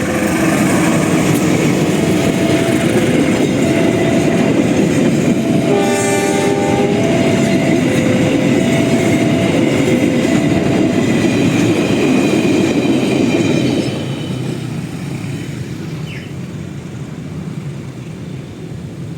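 Railway level-crossing alarm playing a repeating electronic tune of stepped notes while a train passes, its wheels rumbling and clattering on the rails. About six seconds in, the train sounds one short horn blast. The train noise dies away after about fourteen seconds.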